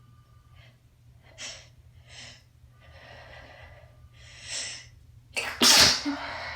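A congested person's sneeze build-up: four gasping inhales over about four seconds, then a stifle that fails and lets a loud sneeze burst out about five and a half seconds in.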